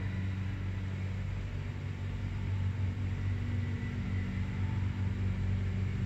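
Pilawa passenger lift car travelling upward: a steady low hum from the lift drive with an even running hiss.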